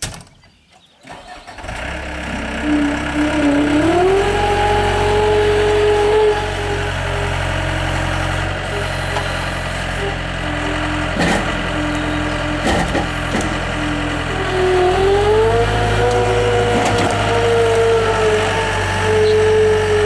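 Gehl skid steer loader's diesel engine cranking and starting about a second in, then running steadily. Its pitch rises as it revs up around three seconds in and again near fifteen seconds, while the hydraulics lift and work the sweeper broom attachment.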